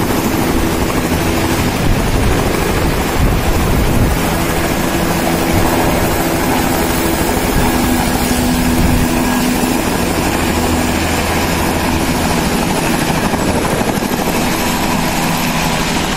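Bell 206 helicopter running loud and steady: the turbine and the two-bladed main rotor, with a steady low hum under dense rotor and engine noise.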